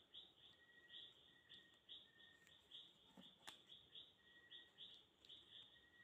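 Near silence with faint, high chirps repeating about two to three times a second in the background, and a single small click about three and a half seconds in.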